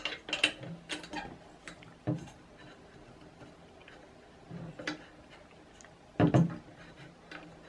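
Thin flat steel spanner clicking against a nut and the aluminium extrusion on a Creality CR-10 3D printer frame as a loose fitting is tightened: a quick run of light metal clicks in the first two seconds, a few more later, and a louder knock a little after six seconds.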